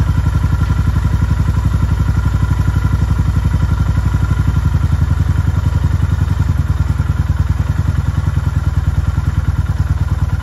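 Freshly started Honda GB350S air-cooled 348 cc single-cylinder engine idling at about 1,000 rpm, a steady, even run of firing pulses.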